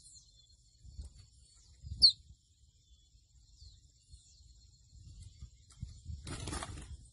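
Gray seedeater (pico de plata) giving sparse short high chirps, with one loud sharp note about two seconds in, over a steady high buzz. A brief burst of noise near the end.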